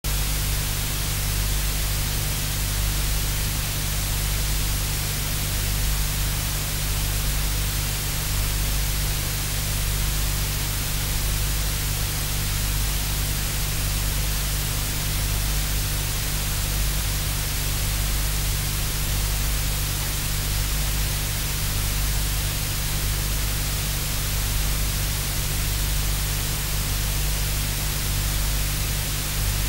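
Steady static hiss over a low electrical hum, unchanging throughout with no distinct sound events: recording or line noise.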